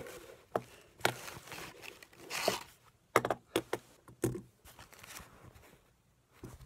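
Handling noise: a quilted cloth rustles as it is moved and folded on a table, with a quick run of sharp clicks and knocks about halfway through as fidget spinners are handled and set down on the tabletop.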